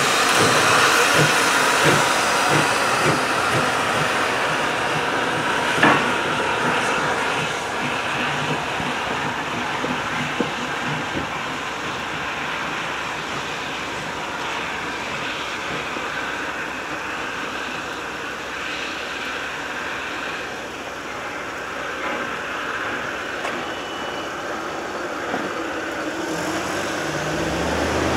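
Steam locomotive No. 40 and its train rolling over the grade crossing, steam hissing and wheels clacking over the crossing rails, with one sharp clank about six seconds in. The sound fades gradually as the train moves off.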